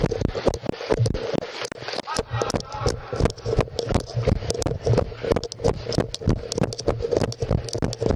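Running footsteps on a hard station floor, heard close on a body-worn camera that jolts with each stride: a quick, regular series of sharp thuds several times a second.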